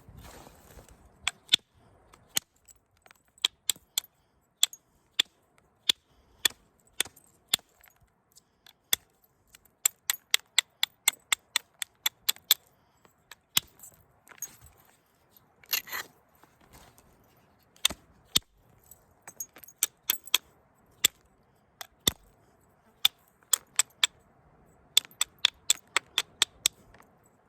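Stone preform being knapped with an elk bone tool: dozens of sharp clicks and ticks of bone striking and flaking the stone edge, irregularly spaced and at times in quick runs of three or four a second, with a couple of short scrapes.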